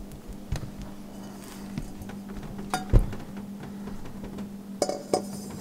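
Clinks and knocks of a stainless steel 90-degree intake pipe being handled and pushed onto the turbo inlet, with one sharper knock about three seconds in and a few quick clicks near the end, over a steady low hum.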